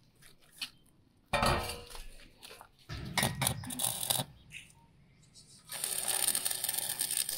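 Metal clanks and clinks: a sharp knock about a second in, then several lighter clicks. After that, from about two-thirds of the way through, a steady hissing noise that keeps going.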